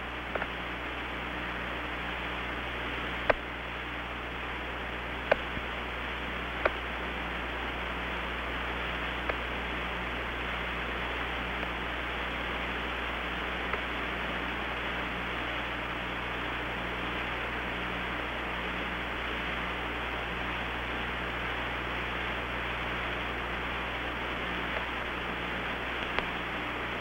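Steady hiss and low hum of the Apollo 11 air-to-ground radio channel, open with no one transmitting. A faint hum pulses about once a second, and a few sharp clicks come in the first several seconds.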